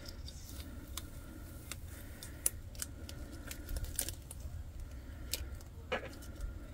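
Adhesive vinyl stencil being peeled off a glass bottle by hand: faint, scattered crackles and ticks as the vinyl lifts away and crumples.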